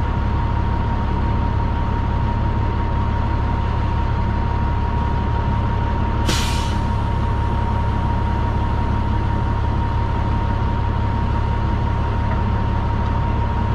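Semi truck's diesel engine idling, heard from inside the cab as a steady low rumble with a steady whine over it. About six seconds in comes one short burst of air hiss from the truck's air system.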